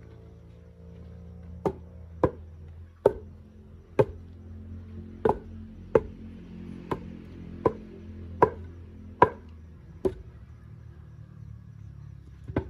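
Heavy hand-tamping blows packing clay and stones into a dry-stone retaining wall: about a dozen sharp strikes, roughly one a second, each with a short ring, with a pause before the last one near the end.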